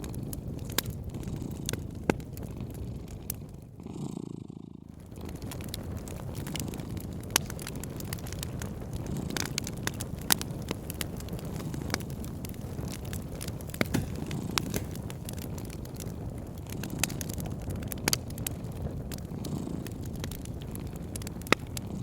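A cat purring, a steady low rumble that swells and eases every few seconds, over a wood fire crackling with scattered sharp pops. The crackles drop out briefly about four seconds in.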